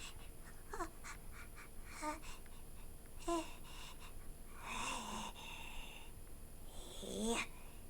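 A person's put-on cartoon voice for Eevee making short, squeaky wordless sounds, with a longer breathy sound about five seconds in.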